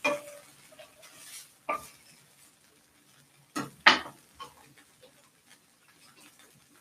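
Kitchen utensils knocking and clinking against a pan and dishes while ribs cook: a few sharp knocks, the loudest two close together about three and a half seconds in, with fainter small clicks between.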